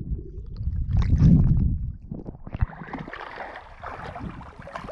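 Sea water sloshing and splashing around a waterproof camera as a person wades: a muffled low rumble at first, then from about halfway through a brighter, crackly splashing.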